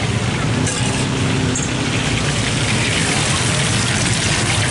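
Hot cooking oil sizzling and bubbling in a wok as beaten egg fries and is rolled onto a bamboo skewer into telur gulung (rolled egg). A steady hiss over a low rumble.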